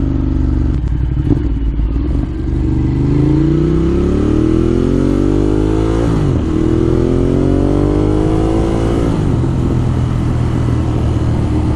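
Ducati Monster 1200 R's 1198 cc L-twin, fitted with a Termignoni exhaust, pulling hard under acceleration. Its pitch rises twice and drops suddenly about six and nine seconds in as it is shifted up, then settles to a steady cruise.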